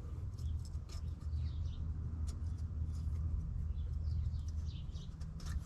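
Small birds chirping in short, quick notes over a steady low hum.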